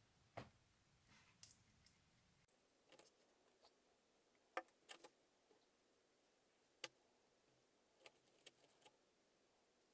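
Near silence broken by a few faint, scattered clicks and light taps.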